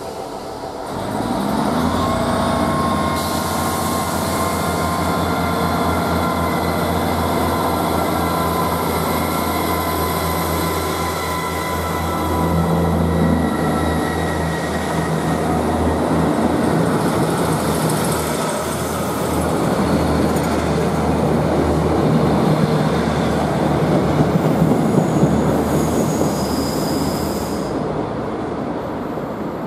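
ScotRail Class 158 diesel multiple unit pulling away and passing close by. Its underfloor diesel engines throb at a low pitch, swelling as they power up about a second and a half in, with thin whining tones over the top. The sound eases off near the end as the train moves away.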